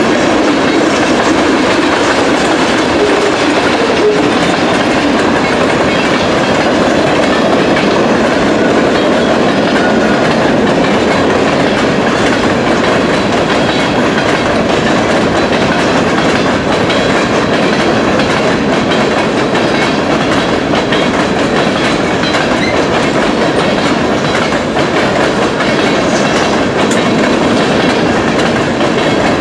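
Freight train rolling past at steady speed, its steel wheels clicking over the rail joints in a continuous clickety-clack.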